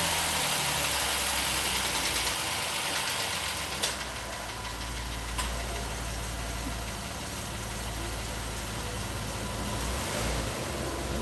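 2011 Jeep Wrangler's 3.8-litre V6 idling steadily, freshly started with new oil in it.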